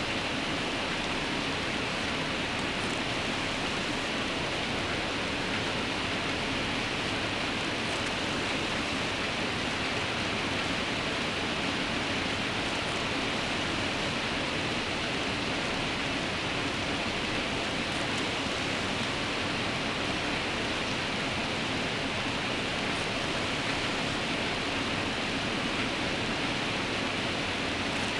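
Steady rain, an even hiss with no breaks or changes.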